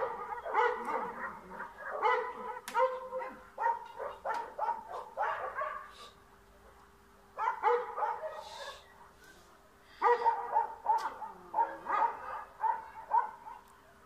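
Small black-and-tan dog barking at a cat, rapid volleys of sharp, high barks in three bouts with short pauses between.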